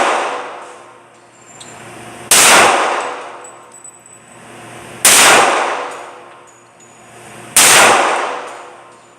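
Three single gunshots fired slowly, about two and a half seconds apart, each echoing and dying away over a second or more in the reverberation of an indoor shooting range.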